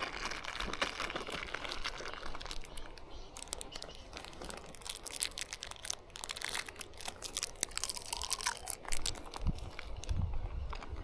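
Footsteps crunching and rustling unevenly along a dry hiking trail.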